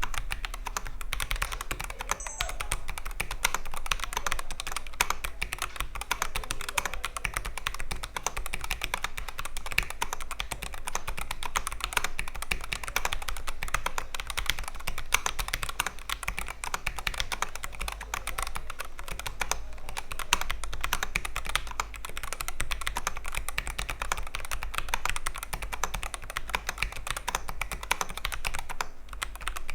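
Continuous fast typing on a Royal Kludge RK N80 mechanical keyboard: a dense stream of keystroke clicks with only brief pauses.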